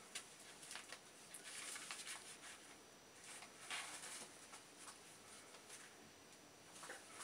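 Faint, intermittent rustling of a ferret shifting about on newspaper in a wire mail basket.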